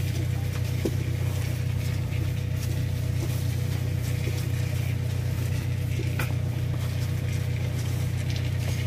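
A motor engine running at a steady speed, giving a constant low hum.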